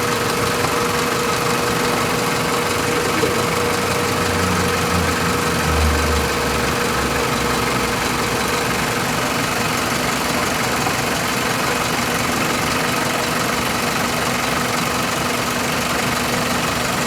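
2001 Toyota Corolla's four-cylinder engine idling steadily, with a brief low swell a few seconds in.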